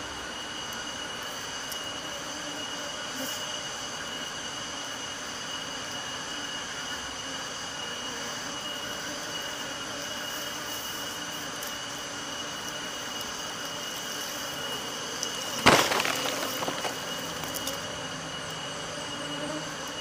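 Steady insect drone, several high tones held throughout. A sudden sharp knock about three-quarters of the way through, with a second of crackling after it.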